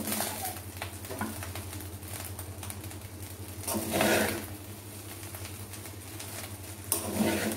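Steel spatula scraping and tapping against a black pan while fried rice is stirred and mixed: a run of quick small clicks and scrapes, with louder scrapes about four seconds in and near the end, over a steady low hum.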